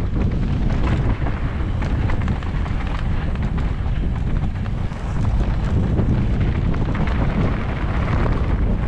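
Mountain bike rolling downhill over rough, rocky ground: a continuous low rumble of wind buffeting the camera microphone, with many small clicks and knocks from the tyres and bike on the stones.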